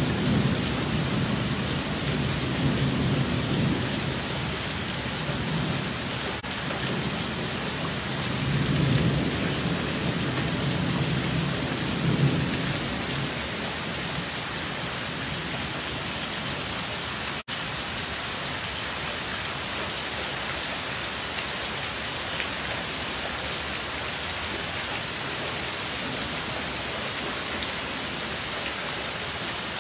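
Heavy rain pouring steadily, with low rolling thunder through the first dozen seconds that then fades, leaving the even hiss of the downpour.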